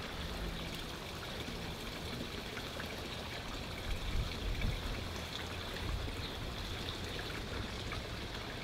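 Water running steadily, with a few low thuds around the middle.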